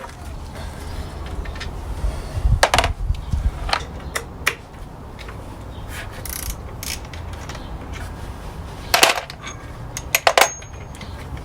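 Scattered metallic clicks and clinks of hand tools and small metal parts being handled, in short clusters, over a low steady rumble.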